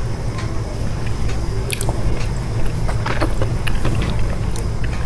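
A person biting and chewing chocolate, with short crisp clicks and crunches now and then, over a steady low rumble.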